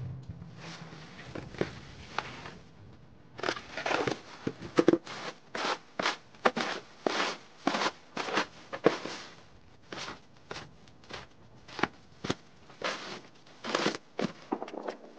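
Two stacked snow shovels scraping and pushing dry snow across a paved driveway in repeated short strokes, about one or two a second, starting a few seconds in.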